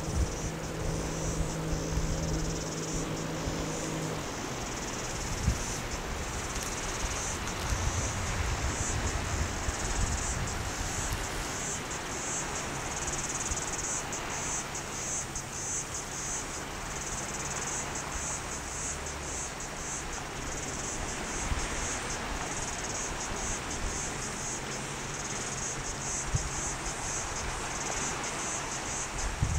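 Cicadas shrilling in a dense, steady chorus with a fast pulsing texture, over low wind noise on the microphone.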